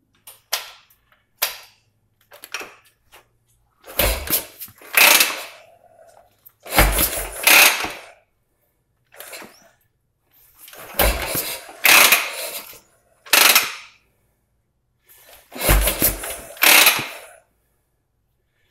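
Motorcycle being kick-started: a few light clicks, then four hard kicks, each a deep thump and a clattering rush of the engine turning over. The engine does not catch and keep running.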